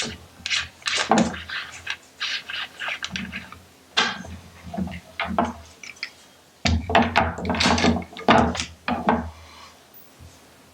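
Small hand vacuum pump being worked on a SeaLife phone housing's vacuum port to pull a vacuum for a leak test: a rapid series of short pump strokes, pausing briefly a little past halfway before starting again.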